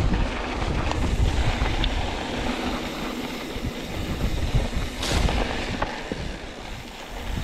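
YT Capra mountain bike rolling fast down a dirt singletrack: steady rush of wind on the microphone and tyre noise on dirt, with scattered knocks and rattles over bumps, the loudest about five seconds in.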